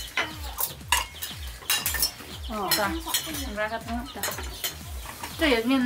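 A spoon and china bowls clink and knock as the food is dished out. From about halfway in, a wavering pitched call rises over them and grows louder near the end.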